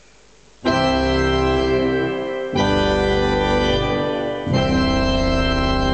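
A heavily modified Makin electronic organ, sounding through loudspeakers, plays three loud sustained chords with its heavy bass pedal stops switched off. The first chord starts about two-thirds of a second in, and the chord changes twice, about two and four and a half seconds in.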